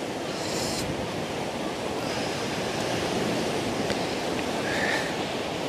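Steady wash of sea surf on the shore, with a brief faint rustle under a second in.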